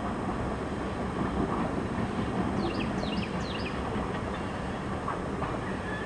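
Tank cars of a freight train rolling past, a steady rumble and rush of wheels on rail. A few short high chirps come about halfway through.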